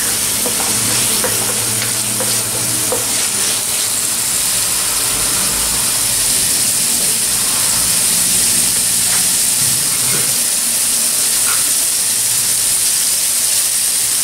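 Shredded chicken, onion and tomato sizzling in hot oil in a nonstick wok, a steady hiss. A wooden spatula stirs and scrapes through the food during the first few seconds.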